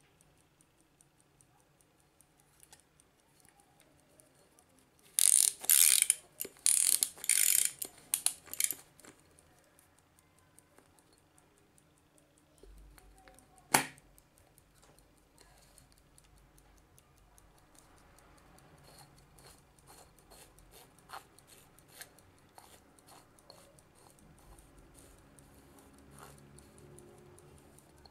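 Faint, steady mechanical ticking of a vintage Soviet N13 ChS panel clock. A few seconds in comes a run of several loud scraping handling noises, and near the middle a single sharp click.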